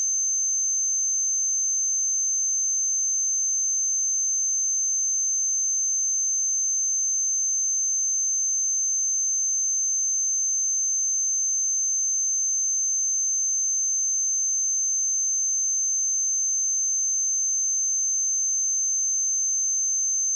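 A pure 6254 Hz sine-wave test tone, a single steady high-pitched whistle-like note held at a constant level.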